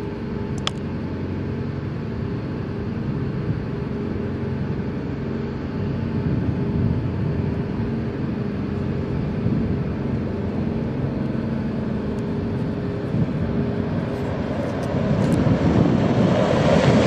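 Pickup trucks driving toward the camera on a gravel road: a steady low engine hum with tyre noise, swelling over the last two seconds as the lead truck comes close.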